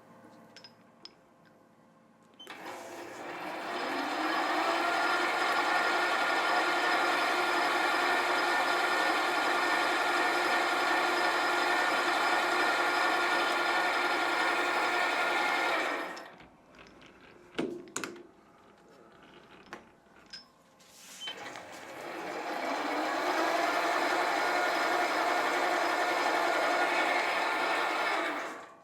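Sieg SC4 bench lathe spinning up and running steadily while taking a light cut of a couple of thou on an aluminium piston blank. It stops after about 13 seconds, gives a couple of clicks, then spins up again and runs for about seven seconds more before stopping.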